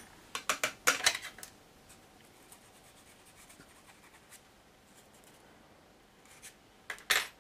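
Small clicks and taps of plastic model-kit parts and a thin rod being handled by hand on a workbench. There is a quick run of clicks in the first second or so, faint ticks after that, and two sharper clicks near the end.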